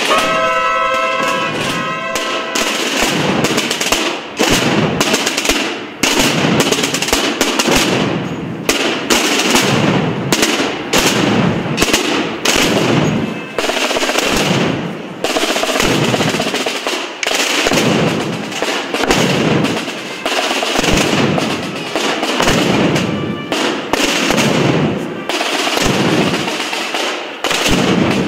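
Massed Holy Week procession drums: many snare-type drums rolling and beating together in rapid strokes, with bass drums pounding in a steady pulse underneath.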